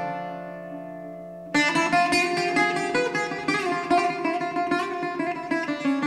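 Background music on plucked strings, guitar-like: a held chord, then from about a second and a half in, a quick run of picked notes.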